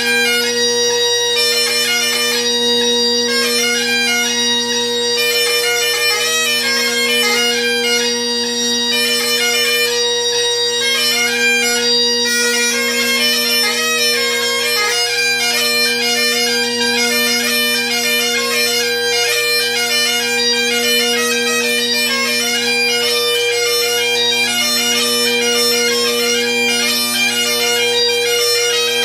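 Great Highland bagpipe playing a jig: steady drones under a fast-moving chanter melody.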